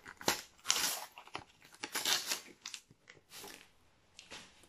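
A Panini sticker packet being torn open by hand, its wrapper crinkling: a run of short rips and rustles, the longest about a second in and again about two seconds in, dying away near the end.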